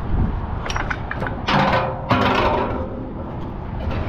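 Braided magnet-fishing rope hauled in by hand and dragged over an aluminium gangway railing. A few light clicks come about a second in, then two louder scraping rubs of rope on metal.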